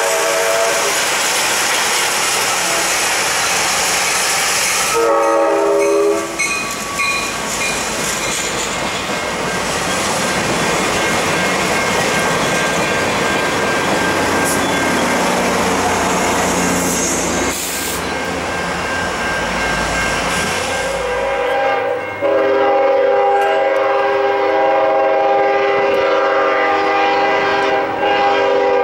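Passenger train led by an EMD F59PHI diesel locomotive sounding its horn as it approaches, with blasts at the start and about six seconds in. The train then passes close by, its diesel engine and wheels on the rails making a dense rumble. The horn sounds again in one long blast from about 22 seconds on as the train moves off.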